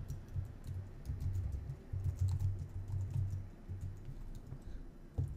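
Typing on a computer keyboard: a quick, irregular run of key clicks, over a low uneven rumble.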